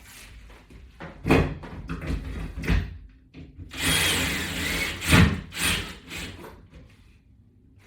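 Knocks and clatter of a latch bar's mounting hardware as screws into toggle wall anchors are tightened: three sharp knocks in the first few seconds, a noisy stretch of about a second and a half in the middle, then two more loud knocks.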